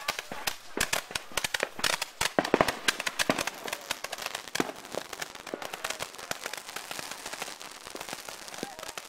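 Fireworks going off: a dense run of sharp pops and crackles, loudest about two and a half seconds in, then thinning to lighter, steady crackling.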